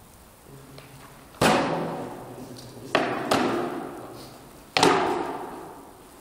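Four sharp blows of swords striking round wooden shields: one about a second and a half in, two close together around the middle, one near the end. Each hit rings on in a long echo.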